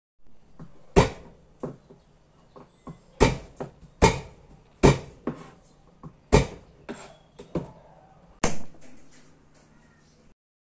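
Kitchen knife knocking on a cutting board while chopping garlic cloves: a dozen or so sharp, irregularly spaced knocks, about six of them loud.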